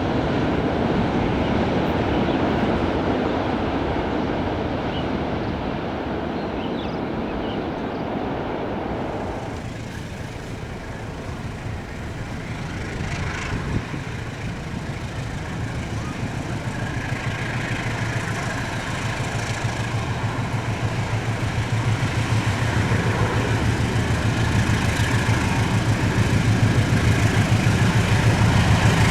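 Train rolling past with a steady rumble of wheels on rail. About ten seconds in, the sound drops abruptly and a diesel locomotive's low engine drone grows steadily louder as it approaches.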